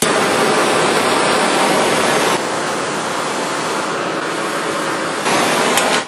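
Handheld MAP-Pro plumber's torch burning with a steady, loud hiss: it catches at once, runs a little quieter for a few seconds in the middle, and cuts off at the end.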